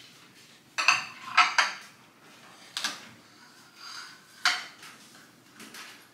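Plates and cutlery being set down on a marble tabletop: sharp clinks and clatters, several in quick succession in the first two seconds, then a few single clinks.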